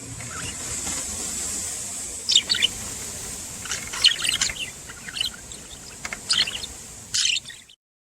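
Budgerigars chirping in short, quick bursts of high twittering, four bursts in all, over a steady high hiss; the sound cuts off suddenly near the end.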